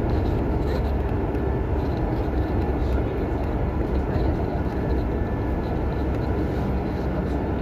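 Steady engine and road noise of a moving bus, heard from on board.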